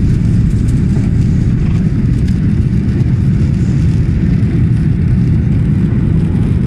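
Boeing 737-800 cabin noise at takeoff thrust: its CFM56-7B turbofan engines make a loud, steady, deep rumble as the airliner lifts off and climbs.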